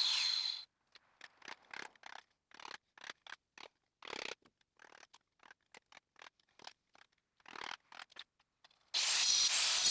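A power cutting tool fitted with a saw-type blade, cutting metal with a loud, hissing noise, stops about half a second in. Then come short, scattered scrapes and scratches of metal parts being handled, and the cutting starts again near the end.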